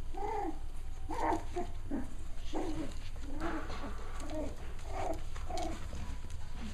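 Cavalier King Charles Spaniel puppies yipping and whining as they play, a run of short, high calls that rise and fall, about one or two a second.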